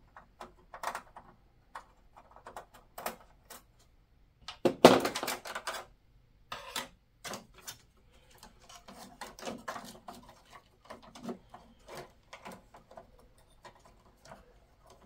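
Clicks, knocks and rattles of parts being handled and fitted inside an open computer tower's metal case, with the loudest clatter about five seconds in.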